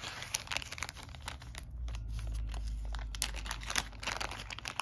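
Clear plastic bags crinkling as they are handled, with game cards being slid and set down on a table in quick irregular crackles. A low rumble joins in from about two to three and a half seconds in.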